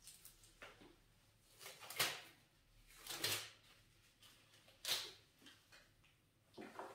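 Hands massaging a face in a buccal facial massage: faint, irregular rubbing and clicking, with four louder clicks spaced through the stretch.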